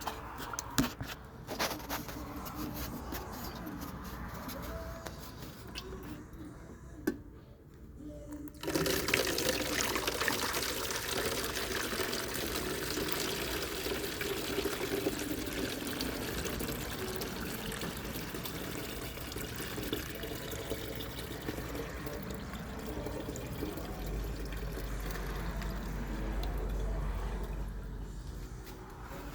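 Windshield washer fluid pouring out of the removed reservoir into a bottle. It starts suddenly about a third of the way in and runs steadily almost to the end, after a few handling clicks and knocks.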